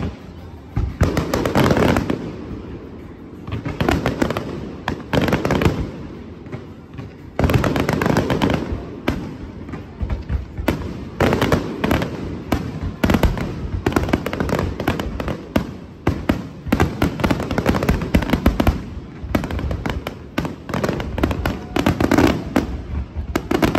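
Aerial fireworks going off in a dense, rapid barrage of sharp bangs and cracks, starting about a second in and hardly letting up.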